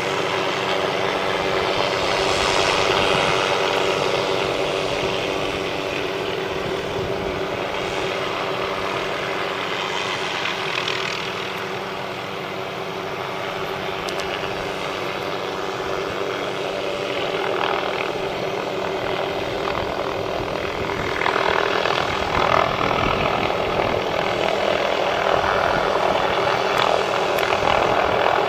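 A heavy engine running steadily, a constant hum with noise that swells and fades at times.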